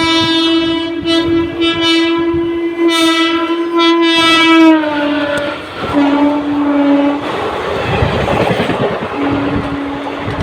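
Express train sounding its horn as it passes at speed. A long horn blast drops in pitch about five seconds in, followed by a shorter blast. Then comes the rush and clatter of the coaches, and the horn sounds again near the end.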